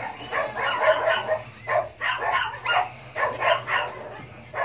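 A dog barking repeatedly in short runs of barks, over a steady low hum.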